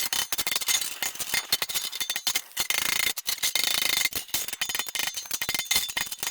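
Rapid, irregular scraping and rasping of metal, starting and stopping abruptly.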